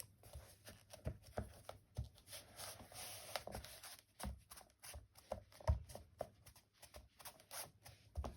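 Quiet scattered taps, clicks and rustling from hands working craft materials on a tabletop, with a longer stretch of rustling a few seconds in.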